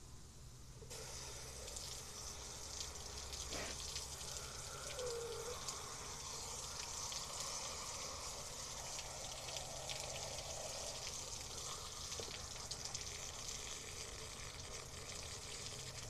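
Garden hose sprayer running water into a coffee maker, a steady rush of spray and splashing that starts about a second in. The water is flushing a suspected clog from the machine's water tube.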